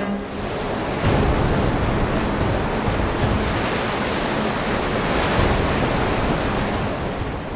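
A steady, loud rushing noise that swells up about a second in, holds steady, then begins to fade near the end.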